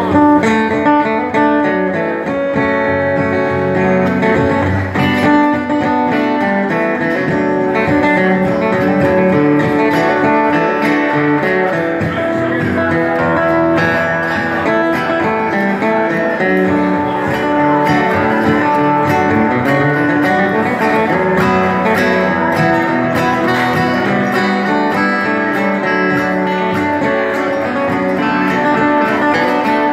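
Acoustic guitar strummed steadily through a live country-folk song.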